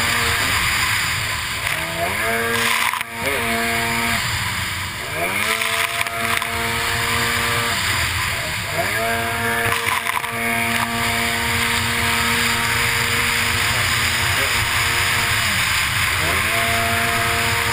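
Racing runabout jet ski's engine heard from on board, running at a steady high pitch that dips and climbs again several times as the throttle is eased and reopened around the turn buoys, over a constant hiss of spray and wind.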